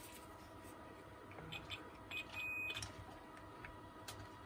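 Multimeter continuity beep: a short high tone a little past two seconds in, among faint clicks of the test probes on the angle grinder's switch contacts. The beep signals continuity: the switch conducts.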